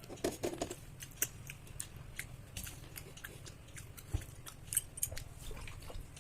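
A person eating rice and curry, chewing with scattered small wet clicks and mouth smacks.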